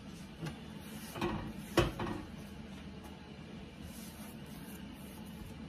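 Hands working masa dough in a plastic bowl, faint handling and rubbing sounds, with one sharp knock a little under two seconds in.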